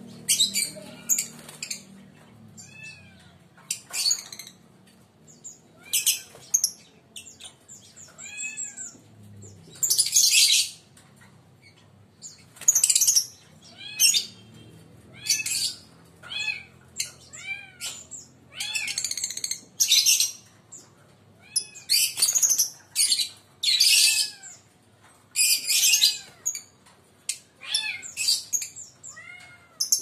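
Lovebirds calling: repeated shrill, high-pitched screeches and chirps, one every second or two.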